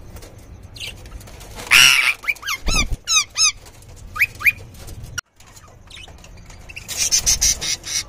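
Rose-ringed parakeets and budgerigars fighting: a loud harsh screech about two seconds in, followed by a quick run of rising-and-falling chirps, with wings fluttering. Another burst of harsh screeching comes near the end.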